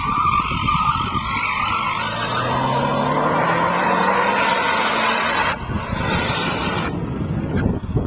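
Mitsubishi Lancer Evolution's turbocharged four-cylinder engine driven hard through a slide, its tyres squealing for the first couple of seconds, then the engine note rising as the car accelerates out of the turn.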